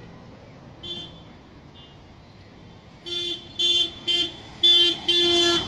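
A vehicle horn honking: one short faint toot about a second in, then five loud honks in quick succession starting about three seconds in, the last held longest.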